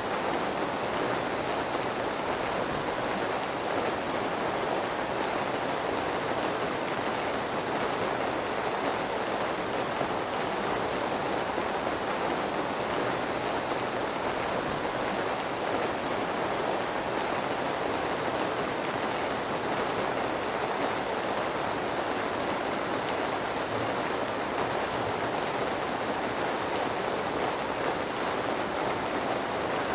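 Steady rain sound: an even, unbroken hiss with no drops or gusts standing out.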